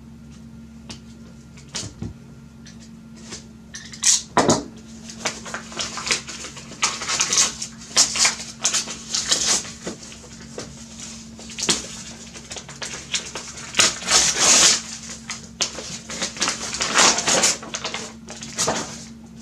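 A graphics card's cardboard retail box and its wrapping being handled: irregular rustles, scrapes and clicks, busiest in the middle, over a faint steady low hum.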